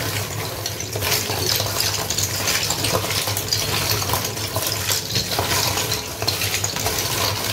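Small liswit seashells being stirred in water, a dense run of little shell-on-shell clicks and clatter over water sloshing, cutting off just after the end.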